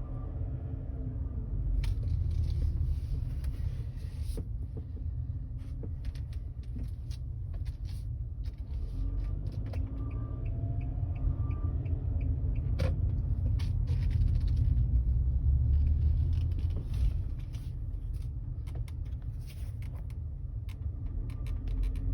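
Engine of a 2020 Kia Sorento 2.4 with automatic gearbox running with a steady low rumble, its pitch rising a few times, with scattered clicks and a brief run of light ticks. This is the extraneous engine noise the owner of the new car (600 km) is concerned about, which the dealer says is a normal trait of the car.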